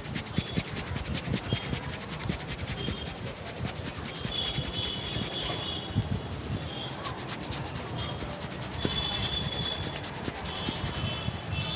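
Barber's hands rubbing fast and hard over a customer's scalp and hair during a head massage, a rapid run of rubbing strokes with a few sharper taps.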